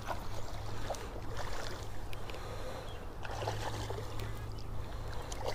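Steady rush of a flowing river's current, with a low rumble under it and a few faint clicks.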